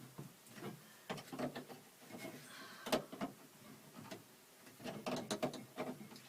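Irregular small clicks and rattles of needle-nose pliers working cable fittings up and out of their mounts inside a van's sliding door, with a sharper click about three seconds in and a quick run of clicks near the end.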